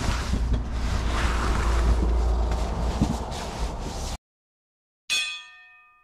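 Loud rushing noise with a deep rumble, like wind on the microphone, for about four seconds, cutting off abruptly. After a short silence a single bright chime rings out and fades.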